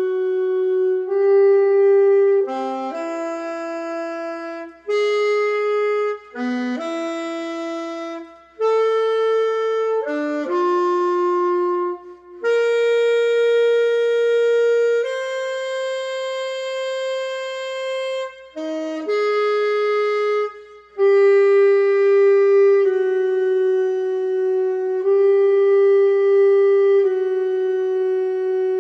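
Music: a slow melody of single held notes, one at a time, in a reedy wind-instrument tone. It is a musical rendering of the Spidicide peptide's amino-acid sequence.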